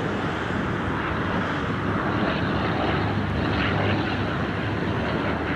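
Propeller engines of the Fokker Dr.I triplane and Fokker D.VII biplane flying in a display, a steady engine noise with no break.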